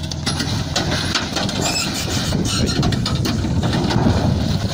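A raised tipper semi-trailer overturning onto its side while dumping: a long rumbling, crunching clatter of the steel body and load coming down, loudest about four seconds in, over the truck's running diesel engine.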